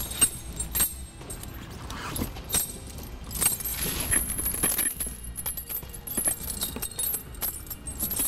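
Steel V-bar snow tire chains clinking and rattling as they are pulled and shifted by hand around a tire, in irregular jingles, the longest rattle a little past the middle.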